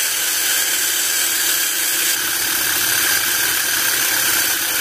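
A 3.6-volt cordless screwdriver's small motor runs steadily, spinning a very thin drill bit pressed against thin plywood. The bit fails to bore through.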